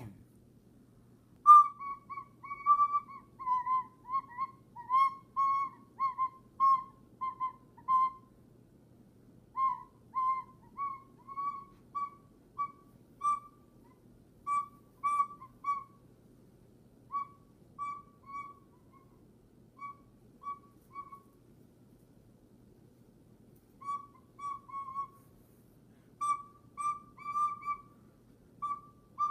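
Recorder played as a run of short, separated high notes within a narrow range, breaking off twice for a second or two before carrying on.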